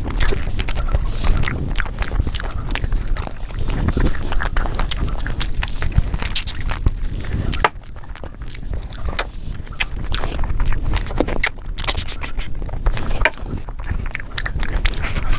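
Close-miked eating: wet chewing and lip-smacking on mutton nalli (bone-in mutton shank) and rice, with a dense run of small clicks and squelches. Near the end there is wet squelching as fingers dig into the food for the next handful.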